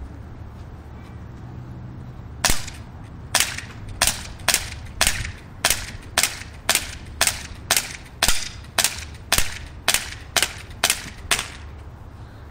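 H&K USP CO2 non-blowback airsoft pistol fired in rapid succession: about sixteen sharp shots at roughly two a second, beginning a couple of seconds in and stopping shortly before the end.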